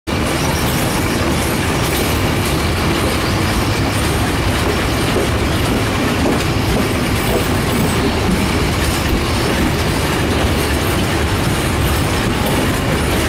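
Passenger train carriage running along the track, heard from its open window: a steady, loud noise of the wheels running on the rails.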